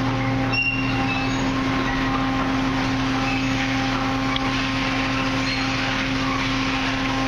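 Automatic car wash running: rotating wash brushes spinning and throwing water, over a steady machine hum.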